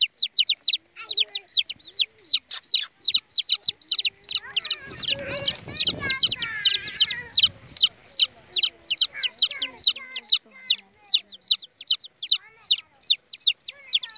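Baby chicks peeping loudly and without pause, high downward-sliding peeps several a second, with a brief rustling noise around the middle.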